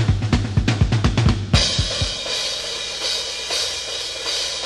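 Drum kit in a late-1960s progressive-blues rock recording: a fast run of drum strokes over bass, about six a second, breaks off about a second and a half in into a cymbal crash that keeps ringing with little else under it.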